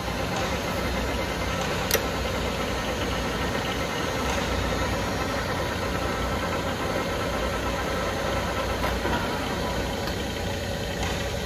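Large LeBlond engine lathe running under power with its chuck spinning: a steady mechanical hum, with one sharp click about two seconds in.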